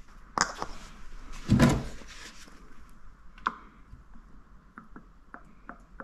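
Handling knocks and clicks while topping up the motorcycle's engine oil: a click about half a second in, a heavier thump near two seconds, another click, then a run of small light ticks near the end.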